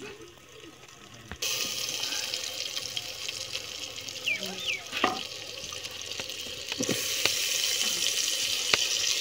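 Oil and spices sizzling steadily in a clay pot over a wood fire, the hiss starting suddenly about a second and a half in and growing louder about seven seconds in. A wooden spatula stirring knocks a few times against the pot.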